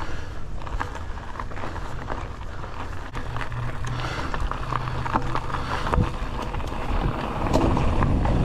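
Polygon Siskiu T7 full-suspension mountain bike rolling fast down a dirt and gravel trail: a steady rumble of knobby tyres on the ground, with frequent clicks and rattles from the bike over bumps.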